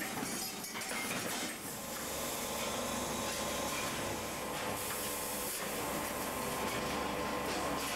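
Factory sheet-metal handling machinery running, giving a steady mechanical noise with hissing air. A short, louder burst of hiss comes about five seconds in.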